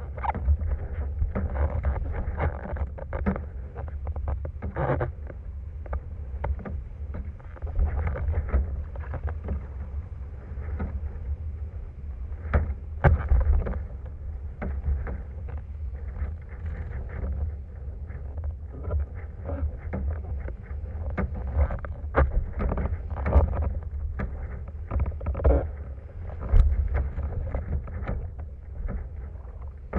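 Wind rumbling on a microphone high on a windsurfing rig's mast while sailing over chop, with frequent short knocks and splashes from the rig and the board, the loudest about a third of the way in and again near the end.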